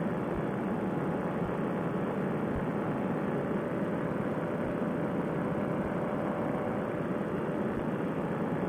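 Fresh Breeze Monster paramotor engine and propeller on a trike running steadily at cruise power in flight, mixed with wind rush. The sound is an even, unbroken noise with a faint steady hum and no change in power.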